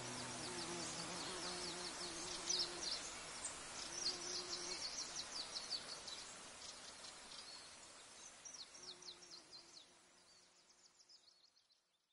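Outdoor field ambience: trains of rapid, high chirping from insects, with a low buzz that comes and goes. It fades away to silence near the end.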